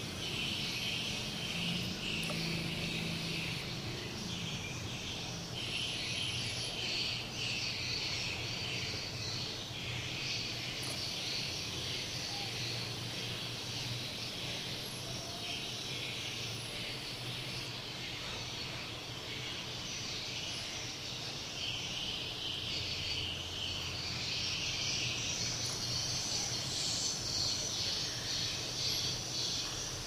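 Edible-nest swiftlets twittering in a dense, unbroken chatter over a low hum, growing a little louder about two-thirds of the way through. These are the calls that swiftlet houses are filled with to draw the birds in, whether from the birds themselves or from lure-call playback.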